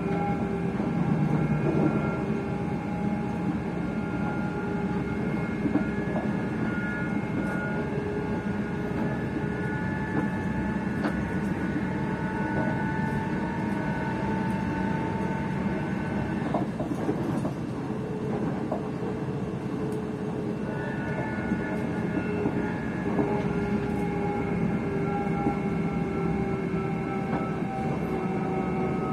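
Traction motors of a ScotRail electric train whining, heard from inside the carriage over rail rumble. Several steady tones slide slowly in pitch, drop out for a few seconds past the middle, then return. The uploader takes this for the sound of wheels slipping.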